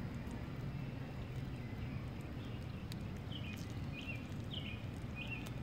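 Outdoor ambience: a steady low rumble, and from a little past halfway a bird repeating a short chirped call about every half second, five or so times.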